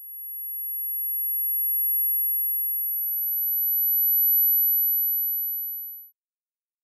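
Synthesised tinnitus neuromodulation sound: a very high-pitched pure sine tone swells in and holds. About three seconds in, a second, slightly higher pure tone joins and overlaps it. The lower tone then stops, and the higher one fades out about six seconds in.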